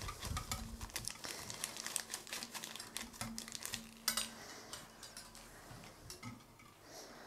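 Metal wire whisk beating a thin liquid egg-and-milk batter in a bowl, its wires clicking against the bowl in quick strokes. The clicking thins out and gets quieter after about four seconds.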